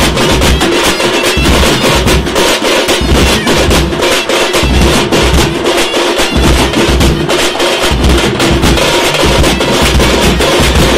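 Tamate frame drums beaten fast with sticks, with large bass drums struck in repeated clusters of heavy low beats: a loud folk drum band playing together.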